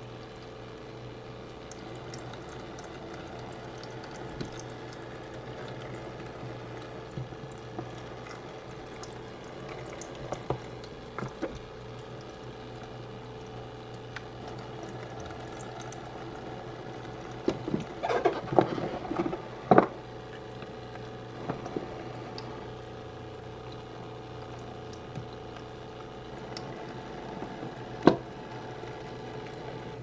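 A toy play sink's small electric pump runs with a steady hum while water streams from its faucet into the plastic basin. A cluster of light knocks and clatters comes a little past the middle, and one sharp knock comes near the end, as fruit is handled in the sink and its plastic dish rack.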